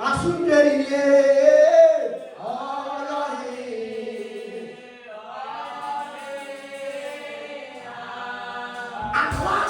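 Voices singing a slow song in long, drawn-out notes that slide gently in pitch, loudest in the first two seconds.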